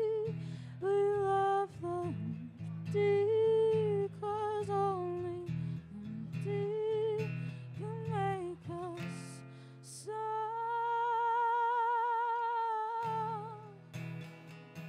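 Live solo performance: a woman's voice sings a melody over an acoustic guitar. About ten seconds in she holds one long note with vibrato while the guitar briefly drops out, then guitar strumming comes back in near the end.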